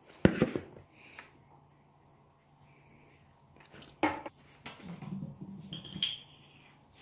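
Hands kneading soft yeast dough for pizza in a plastic bowl: knuckles pressing and folding the dough, with a sharp knock against the bowl just after the start and another about four seconds in. A faint steady hum runs underneath.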